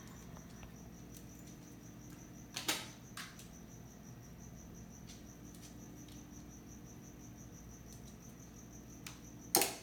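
A quiet room with a faint steady high-pitched whine. A dog's movements make a sharp click about two and a half seconds in and a louder clatter of clicks near the end, as her paw comes down on the plastic talking buttons.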